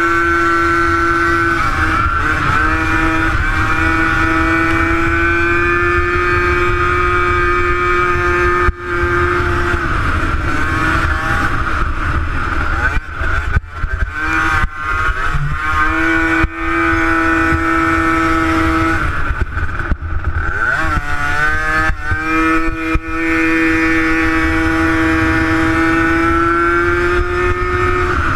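Engine of a 50cc racing quad running flat out, a steady high-pitched drone that falls and wavers as the throttle is eased through the turns about halfway through and again about two-thirds through, then climbs back up.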